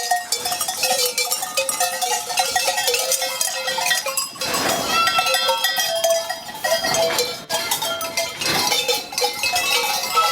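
A herd of goats with neck bells on the move, many bells clanking and ringing at different pitches throughout. Goats bleat a few times, about four seconds in and again near the end.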